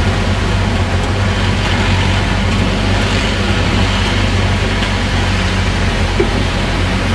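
A vehicle's engine running steadily with road and wind noise as it drives along, a constant low hum under an even rushing.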